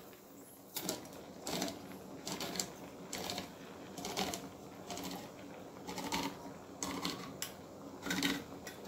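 Hand-crank can opener being turned around a metal tin, clicking in short repeated bursts about every half second to second as the tin is cut open.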